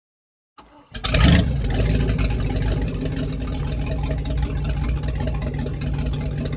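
Motorboat engine running steadily, cutting in loudly about a second in after a moment of silence.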